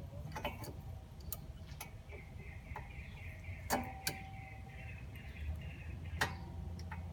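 Sharp metallic clicks and clinks of brake caliper hardware (pins, anti-rattle clips and pads) being handled and fitted, about eight in all, one ringing briefly. A wavering metal scrape runs from about two to five seconds in.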